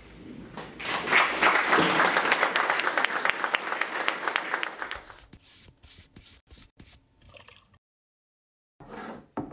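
Audience clapping, rising about a second in and dying away after about five seconds. It is followed by a few separate sharp clicks, a short silence and a brief burst near the end.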